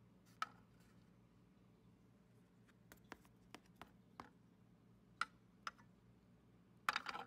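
Faint, scattered clicks and taps of small plastic toy figures being set down in a plastic playset, about a dozen spread over several seconds, with a quick cluster of clicks near the end, over a low steady hum.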